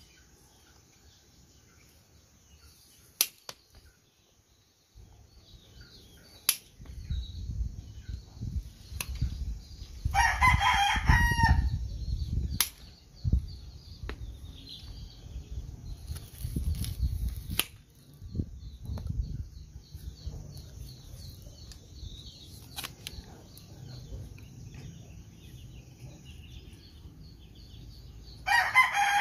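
A rooster crows twice: once loudly about a third of the way in, and again right at the end. Between the crows there is a low rumbling noise and a few sharp clicks.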